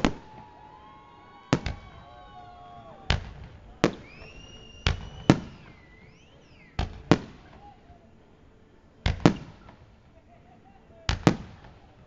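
Aerial fireworks bursting with sharp bangs every second or two, often in quick pairs. Whistling fireworks shriek in between, their pitch rising, falling and wavering, mostly early on and again in the middle.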